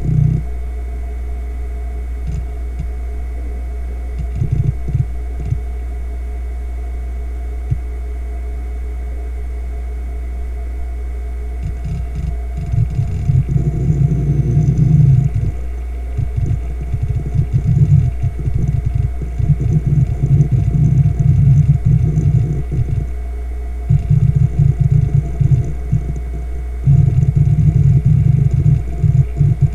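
Fujitsu MEA3320BT 3,600 RPM laptop-size hard drive spinning with a steady low hum. Its heads seek in irregular bursts, sparse at first and then rapid and almost continuous from about twelve seconds in, as it reads the operating system during boot.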